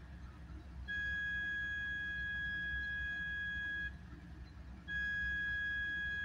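An electronic warning alarm sounding a steady high-pitched tone, held about three seconds, stopping for a second, then sounding again. A constant low rumble runs beneath it.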